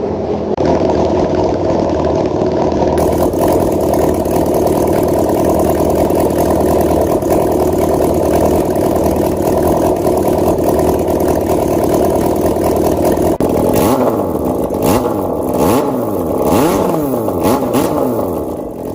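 Honda CBR919's inline-four engine running steadily, then revved up and down in several quick blips over the last few seconds.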